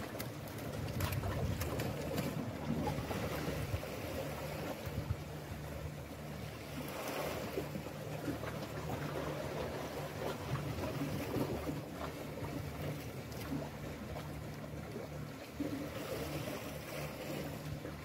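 Sea waves washing against shore rocks with wind on the microphone, over a steady low hum.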